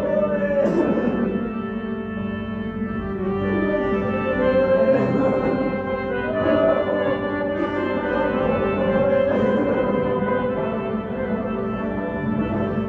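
Pashto folk music: a clarinet playing a wavering melody over a steady drone.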